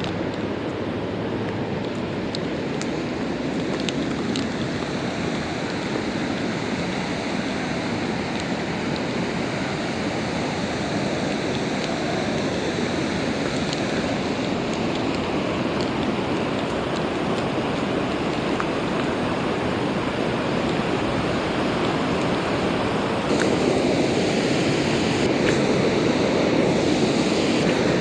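Steady rushing water, growing gradually louder and stepping up louder about 23 seconds in, with a few faint clicks.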